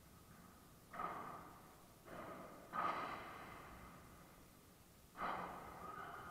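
Padel ball struck by rackets and bouncing during a rally: five sharp hits at uneven intervals, each ringing on with an echo in the enclosed court.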